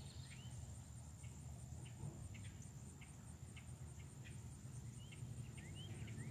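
Faint outdoor ambience: a steady high-pitched insect trill throughout, with scattered short bird chirps and a low rumble underneath.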